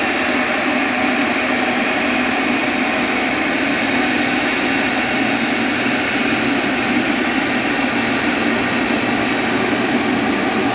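Jet airliner's engines, a loud steady noise that holds level throughout with no break.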